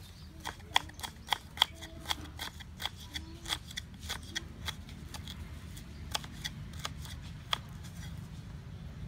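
Kitchen knife cutting fresh ginger into thin strips on a wooden cutting board: a run of sharp taps, about three a second, thinning out in the second half.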